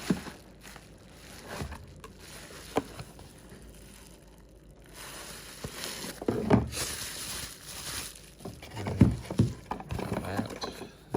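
A charging adapter's box and packaging being opened and handled: rustling with scattered knocks and clacks, busiest a little past the middle.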